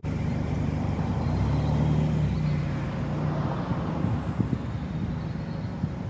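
Toyota Yaris hatchback's engine running as the car pulls away, its hum strongest about two seconds in and then easing off, over tyre and road noise.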